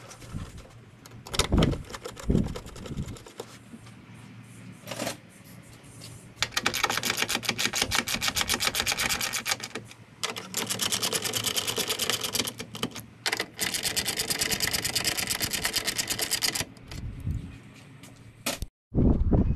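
Hand ratchet clicking rapidly in two long runs while bolts are run down on a car's radiator support, after a few knocks of parts being set in place.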